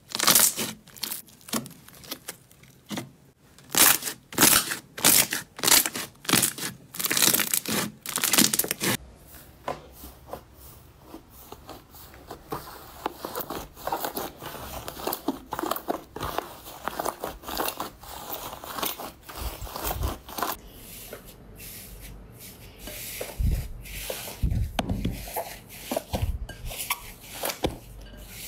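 Hands squeezing and kneading slime. For about the first nine seconds a glossy slime gives loud squelches and pops, one after another. After that come softer, continuous crackling and tearing sounds as a fluffy white slime is stretched and pressed.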